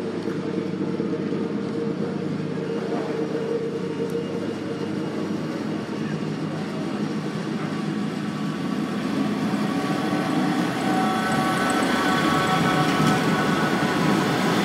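Class 158 diesel multiple unit approaching and running past close by over a level crossing, its diesel engines droning steadily. It gets louder about ten seconds in as it draws alongside, when a whine of several steady higher tones joins the drone.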